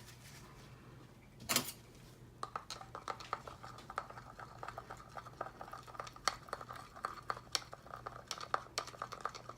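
A single knock about a second and a half in, then a quick, steady clinking of a small utensil against a small cup as gold mica powder is stirred into rice bran oil.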